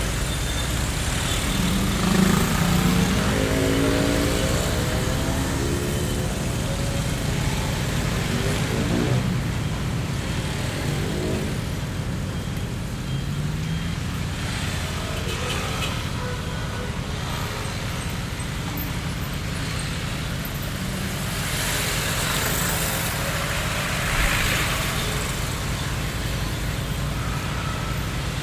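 Busy street ambience: a steady wash of road traffic from passing cars. A vehicle engine's pitch climbs a couple of seconds in, and again briefly near the middle.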